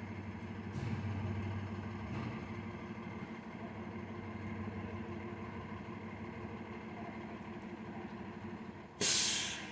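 A vehicle engine running steadily with a low hum. Just before the end comes a short, loud hiss of air that fades quickly.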